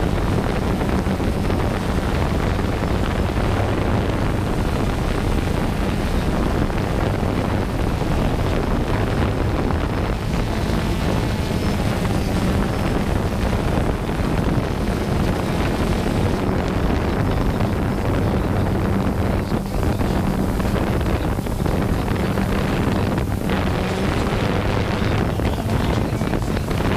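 DJI Phantom 2 quadcopter's motors and propellers droning steadily, heard from the GoPro camera hanging under it, with wind rushing over the microphone.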